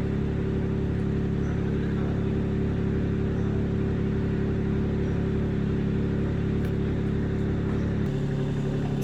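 Car engine idling steadily, with the deepest part of the hum dropping away about eight seconds in.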